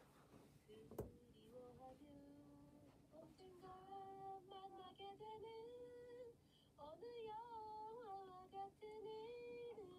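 A woman's voice singing a slow melody with long held notes, faint. A sharp click about a second in.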